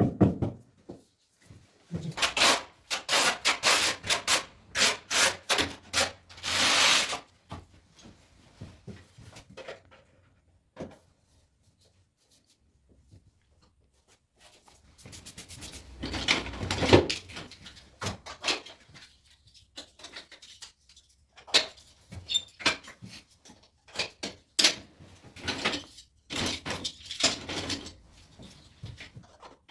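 Scraping and rubbing from hand tile-setting on a wall: ceramic tiles worked into adhesive and fitted with leveling clips. There is a quick run of short scraping strokes at the start, a quiet stretch in the middle, then more scrapes and clicks.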